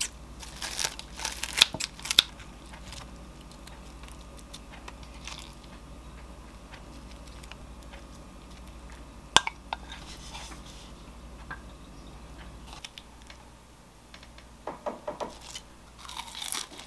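Kitchen scissors cutting through a crispy fried breaded cheese pork cutlet: a quick run of crisp crunching snips in the first couple of seconds. A single sharp click comes a little past the middle, and a few soft knocks and rustles of handling near the end.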